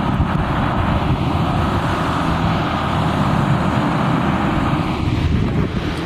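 Blizzard wind buffeting the microphone with a heavy, uneven rumble. A steady rushing hiss sits over it and fades away about five seconds in.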